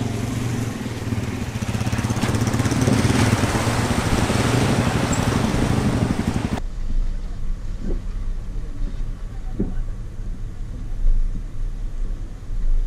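Off-road vehicle engine running under a loud rushing noise. About six and a half seconds in it cuts suddenly to a quieter, low engine rumble.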